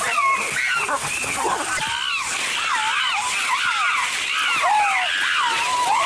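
A group of chimpanzees calling at once: many overlapping high calls, each sliding up and down in pitch.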